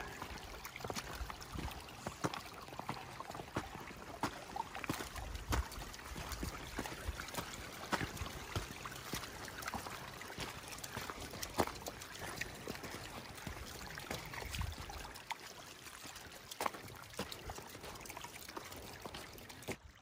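A small flow of water trickling along a roadside ditch, a steady hiss, with scattered clicks and crunches over it.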